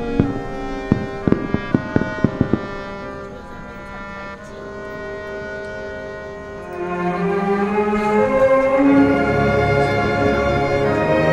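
Orchestral music with strings and brass, with a run of firework bangs over it in the first two or three seconds; the music then grows louder and fuller about seven seconds in.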